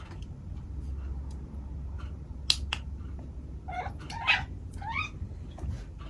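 Siberian cat giving three short meows in quick succession just past the middle, the last one rising in pitch; they are his calls in reaction to a laser pointer dot. Two sharp clicks come shortly before the calls.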